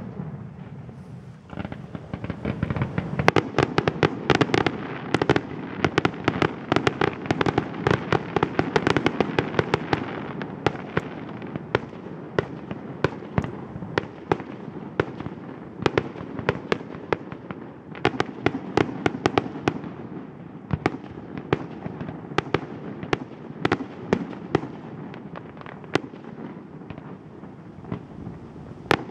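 Fireworks display: shells bursting in a rapid, irregular string of sharp bangs. They are densest in the first ten seconds or so and come more sparsely after that, with a continuous haze of noise between them.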